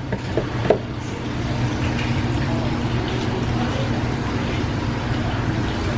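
Steady low background hum, with a few light clicks or knocks in the first second.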